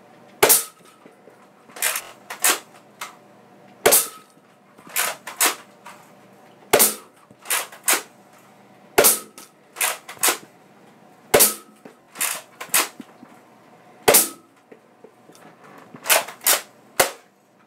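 Nerf blaster firing foam darts shot after shot. Sharp plastic snaps and clacks come roughly one to two a second until the blaster is emptied.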